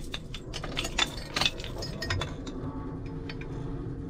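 Keys jangling and dashboard switches clicking as the motorhome's ignition is worked, with a faint steady hum coming in about halfway through.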